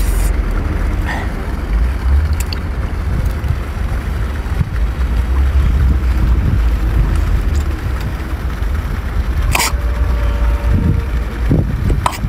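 Steady low wind rumble buffeting an outdoor microphone, with a few short clicks, one louder about three-quarters of the way through.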